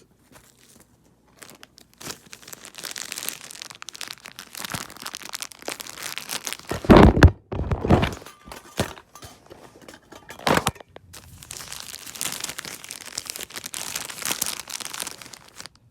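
Plastic and cardboard packaging of a charger set crinkling and rustling as it is unpacked by hand, with loud handling knocks about halfway through and again a few seconds later.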